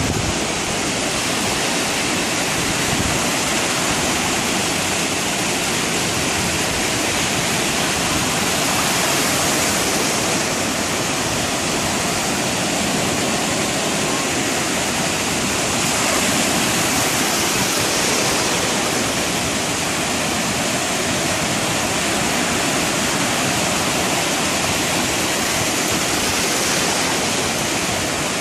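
Ocean surf breaking and washing through the shallows: a steady rushing hiss that swells slightly every several seconds.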